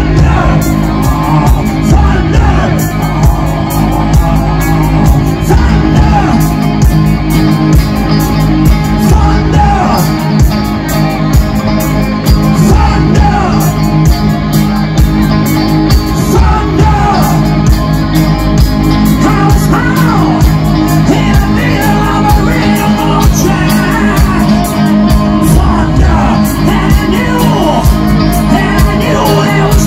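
Live rock band playing loud: drum kit, electric guitars and bass guitar, with a singer's voice over them.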